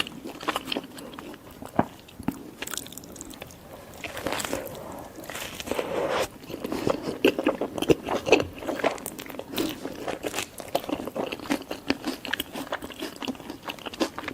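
Close-miked biting and chewing of a burger: irregular crunchy bites and wet, crackling chewing, busier and louder from about four seconds in.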